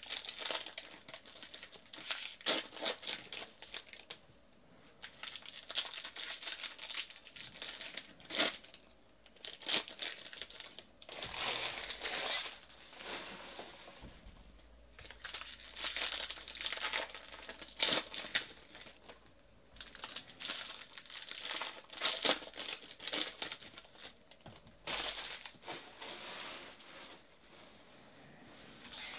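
Foil wrappers of Bowman baseball card packs crinkling and tearing open by hand, in repeated bouts broken by short pauses.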